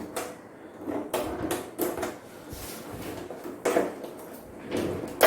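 Plastic and metal parts of an LED TV being handled, with short knocks and scrapes about a second apart as covers and panel parts are moved and set down.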